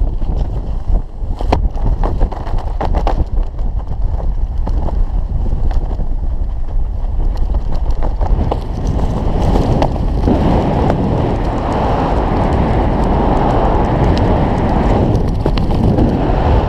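Wind buffeting the microphone of a skydiver's head-mounted camera while descending under an open parachute canopy, with sharp cracks and flutters in the first few seconds. The rushing grows louder about ten seconds in.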